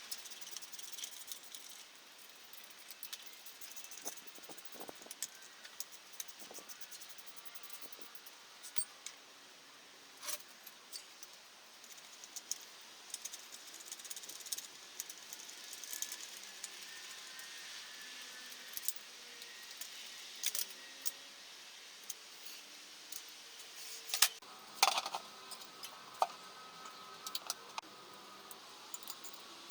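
Metal tools and parts clinking and clicking now and then, with a few louder sharp knocks near the end.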